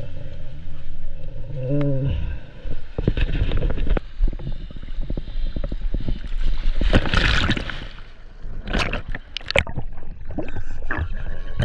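Sea water sloshing and splashing around the camera as it goes into the surf and under the water, with a loud splash about seven seconds in and scattered knocks. Background music comes in near the end.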